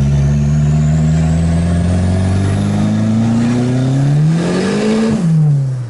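Turbocharged, carbureted VW Gol engine accelerating hard, heard from inside the cabin: revs climb steadily with a thin high whine rising alongside, then rise sharply about four seconds in and fall away near the end. The turbo is not reaching its target boost on this pull, which the crew calls low pressure.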